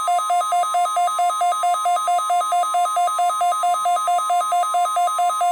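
NOAA Weather Radio's steady 1050 Hz warning alarm tone, with a weather radio receiver's alarm beeping rapidly over it at two alternating pitches, about six beeps a second. The tone is being sent as part of the weekly test of the warning alarm.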